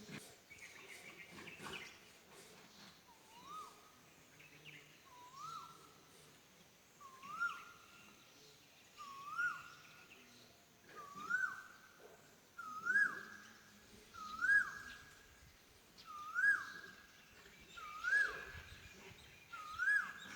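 A cuckoo calling over and over, about ten times at roughly two-second intervals: each call is a short note that swoops up and then drops, and the calls grow louder towards the end.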